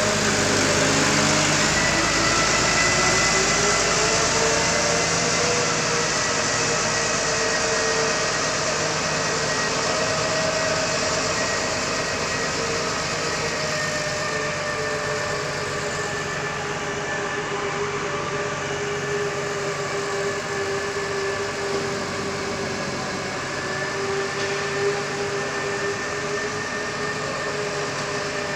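TCM diesel forklift engine running steadily while the loaded truck drives, its pitch drifting up and down a little. It is somewhat louder in the first several seconds.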